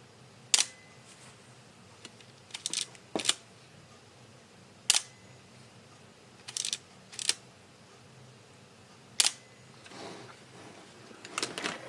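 Epson R-D1s digital rangefinder camera's shutter being released several times: short sharp clicks a second or two apart, some coming in quick pairs.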